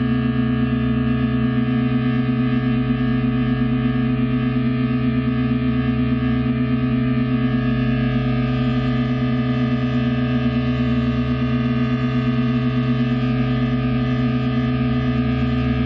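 Live experimental drone music for guitar, MIDI controller and balloons: a dense, unchanging chord of many sustained tones, with a fast wavering beat in one low tone.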